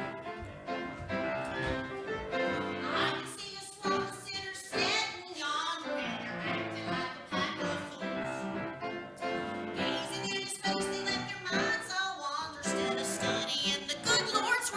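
Music: singing with instrumental accompaniment.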